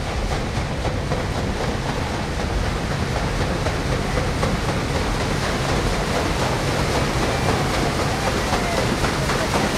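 Paddle steamer Waverley's paddle wheels churning the water in a steady, rhythmic thrash, growing slightly louder as the ship comes closer.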